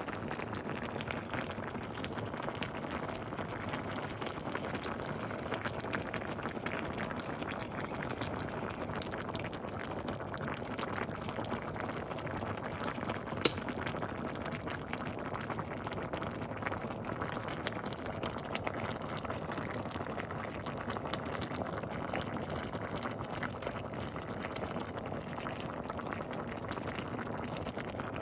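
Pot of green mung bean stew bubbling at a steady boil, a dense crackle of popping bubbles, with one sharp click about halfway through.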